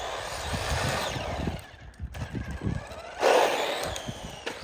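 WLtoys 124010 1/12 RC car with a brushed motor, driving. The motor whines and the tyres and drivetrain are noisy in two surges of throttle, dropping away briefly about two seconds in, with the louder surge a little past three seconds.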